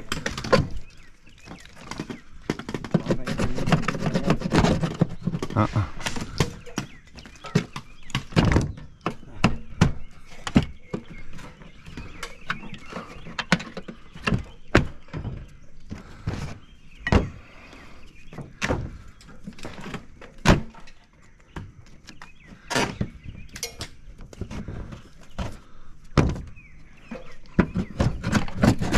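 Irregular knocks and thunks, dozens of them at uneven spacing, from work on a mobile home's old gutters and siding. Indistinct voices come in around four seconds in and again near the end.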